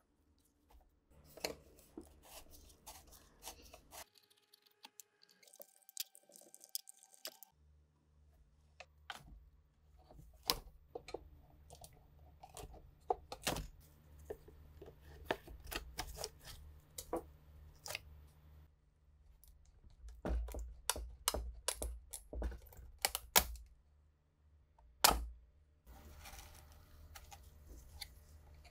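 Hand tools prying, tapping and scraping on old wood and metal fittings of a wooden cabinet: irregular clicks, knocks and scrapes, with a brief lull a few seconds in and a run of louder knocks in the last third.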